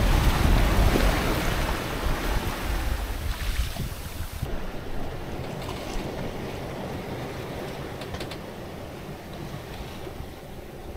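Water rushing along the hull of a Nicholson 35 sailing yacht running fast through waves, with wind buffeting the microphone. About four and a half seconds in, the sound drops abruptly to a quieter, duller rush.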